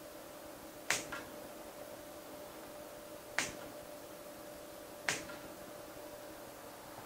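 Pruning shears snipping through schefflera leaf stems: three crisp snips a couple of seconds apart, the first followed by a lighter click.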